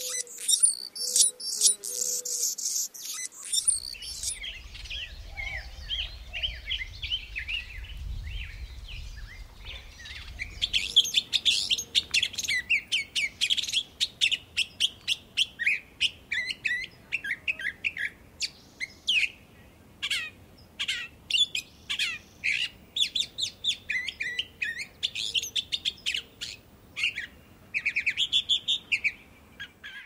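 Wild songbirds chirping and singing, a busy mix of short repeated chirps and trills that becomes denser and louder from about ten seconds in. A high, thin chatter is heard in the first few seconds.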